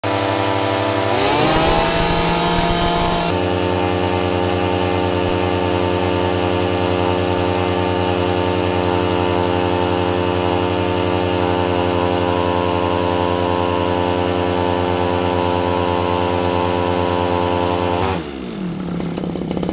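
Two 30cc two-stroke brush cutter engines, a Mitsubishi TU33 and a Stihl FR3001, coupled shaft to shaft and held at full throttle against each other, their clutches slipping until they smoke. The engines rev up about a second in and then run at a steady high pitch; near the end the pitch drops as they slow to a lower, steadier running.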